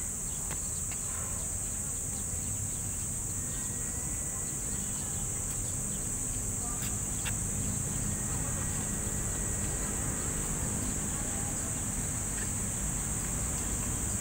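Steady, unbroken high-pitched insect drone from the trees, over a low background rumble.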